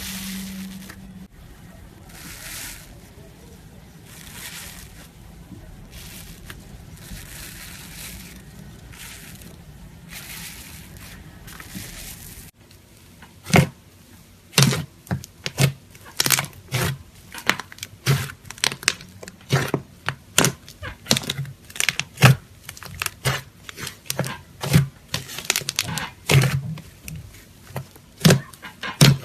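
Slime being handled: soft wet squishing swishes for the first twelve seconds or so, then, after a sudden change, a long run of sharp clicking pops, one or two a second.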